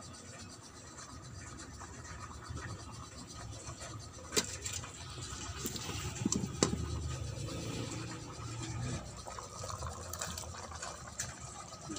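Sautéed carrots, potatoes and bell pepper being tipped and scraped out of a steel pot into a pot of simmering chicken curry: a rough scraping with a few sharp knocks of metal, partway through.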